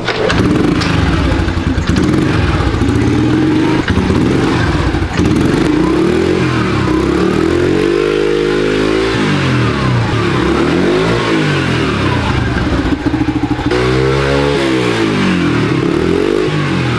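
Small dirt bike engine running while the bike swings back and forth on a rope, its sound sweeping up and down in a wavering pattern every few seconds as it swings.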